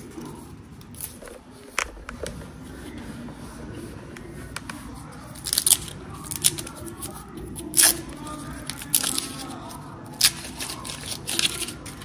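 Vegetables being peeled by hand: a run of irregular sharp crackles and clicks, the loudest about six and eight seconds in.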